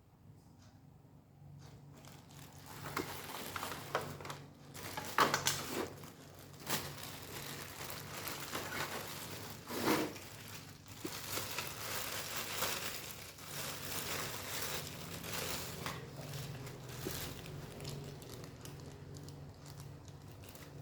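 Packaging being handled during an unboxing: crinkling and rustling from about two seconds in, with several sharper crackles along the way.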